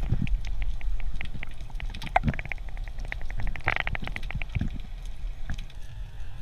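Underwater sound picked up through a camera housing: low rumbling water noise with a series of sharp clicks that quicken into a rapid run about two to four seconds in.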